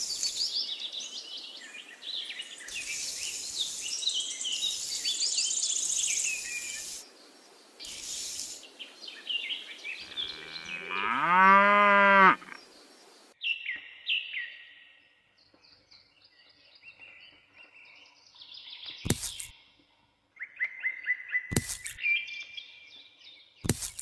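Birds chirping, then a cow mooing once, long and loud, about halfway through. Later there are a few more chirps and three sharp clicks.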